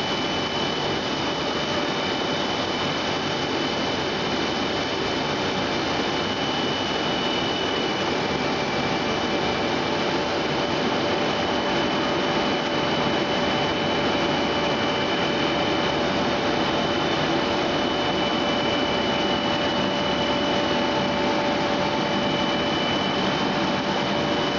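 A 180-type EPE foam sheet extrusion line running: a steady, even machine hiss and hum with several constant high whining tones on top, unchanging throughout.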